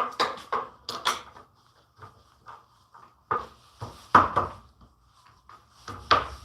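Irregular knocks and clatters of wood and tools handled on a workbench, loudest about four seconds in and again near the end.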